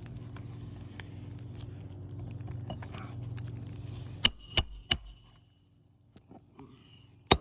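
Hammer driving roofing nails through asphalt shingles: three quick blows with a metallic ring about four seconds in, then one more blow near the end. A steady low hum runs underneath until just after the first blows.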